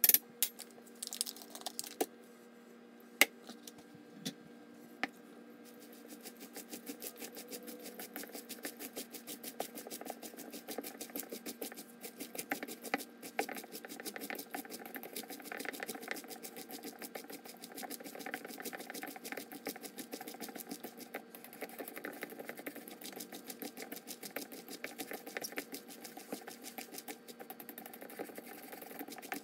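Bare hands squeezing and kneading salted shredded cabbage in a plastic bowl: a fast, continuous wet crunching and crackling as the cabbage is massaged to draw out its brine. A few sharp clicks come first, as the measuring spoon knocks against the bowl before the kneading starts about six seconds in.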